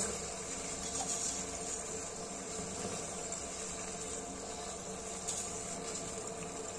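Water at a rolling boil in a steel pot on a gas stove, a steady bubbling hiss.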